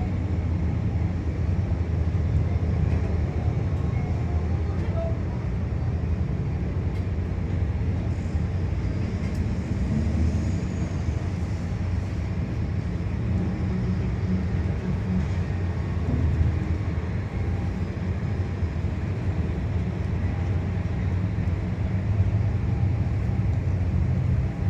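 Steady low engine rumble of ships, the big vessel and its tugboats, running without change.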